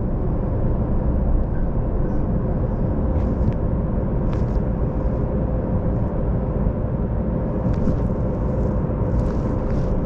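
Steady rumble and hum inside a Las Vegas Monorail car, with a faint constant whine.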